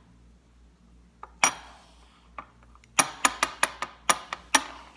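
Hard plastic cube fidget toy clacking against a stone countertop: one sharp click, then a quick run of clicks about five a second near the end.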